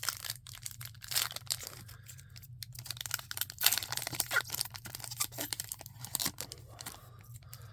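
A trading-card pack wrapper being torn open and crinkled by hand, an irregular run of crackling tears and rustles.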